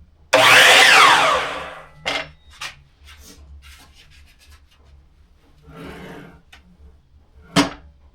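Hercules miter saw running briefly: a sudden loud burst whose pitch falls over about a second and a half as the blade winds down. A few short knocks follow, and a sharp click comes near the end.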